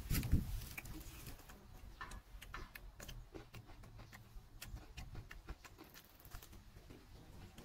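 Close-up eating sounds: a short slurp as a cooked snail is sucked from its shell at the start, then chewing with many small, irregular crisp clicks as a raw cucumber is bitten and crunched.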